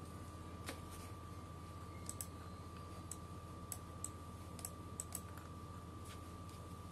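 Faint, irregular clicks of a computer mouse being operated, about a dozen spread over several seconds, over a steady faint electrical hum with a thin high tone.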